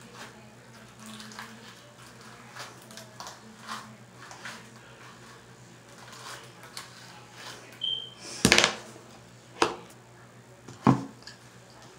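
Soft, repeated strokes of a hairbrush through greased natural hair, over a low steady hum. Near the end come three louder knocks as items are handled on the countertop.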